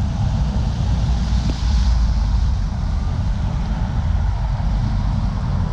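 Road traffic on a wet cobblestone avenue: cars and vans driving past with a steady low rumble and tyre hiss on the wet stones, the hiss swelling briefly about two seconds in.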